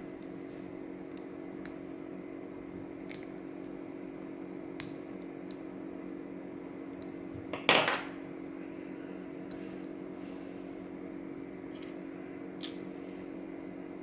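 Small metal clicks and taps of lock parts being handled while a dimple lock is taken apart, with one louder metallic clatter a little past halfway. A steady background hum runs underneath.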